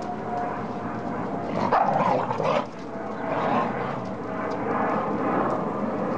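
Dalmatians vocalising as they play-fight, with a loud burst of barking about two seconds in and rougher, quieter vocalising after it.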